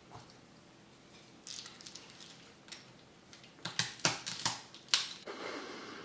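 Plastic bubble-wrap packing bag crinkling and crackling as a circuit board is taken out of it. The crackles are scattered at first, grow busier and louder about three and a half seconds in, and end in a short rustle.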